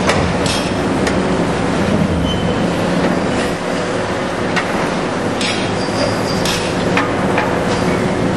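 Heavy demolition machinery running steadily with a low diesel engine hum, broken by repeated sharp clanks of concrete and steel and a few brief high metal squeals as the stadium structure is torn down.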